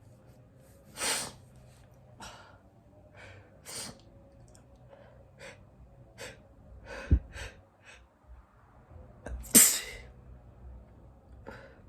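A man sneezing several times, with shorter sniffs and breaths between the sneezes; the loudest sneeze comes near the end. A brief sharp thump sounds a little past halfway.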